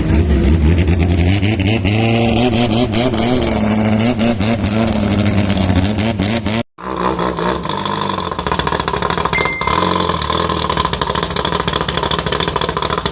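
Racing long-tail boat engine revving up and down. After a sudden break about two-thirds of the way in, it runs hard at steady high revs with a rapid rattle.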